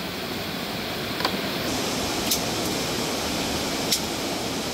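Steady rush of flowing river water, with three sharp cracks of dry sticks and branches being broken by hand, about one, two and four seconds in.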